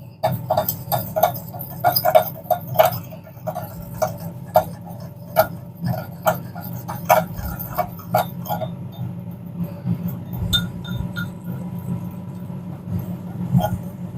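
A spoon clinking against a bowl while icing sugar and water are stirred into icing: irregular clinks about one to two a second, growing sparser in the second half, over a steady low hum.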